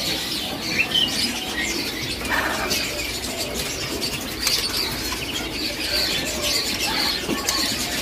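Many caged birds chirping and calling over one another in short, high, scattered notes, with some wing flapping and rustling.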